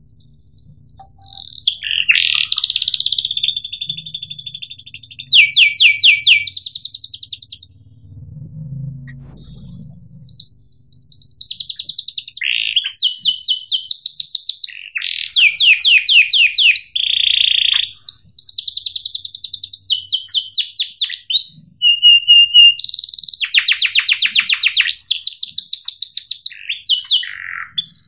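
Canary singing: high-pitched phrases of fast rolling trills and chirps, one after another, with a break of a couple of seconds about eight seconds in.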